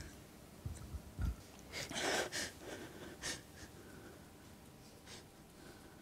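A crying teenage boy's sobbing breaths and sniffs, picked up close by the handheld microphone he holds, coming in short irregular gasps with the biggest about two seconds in. Two low thumps about a second in.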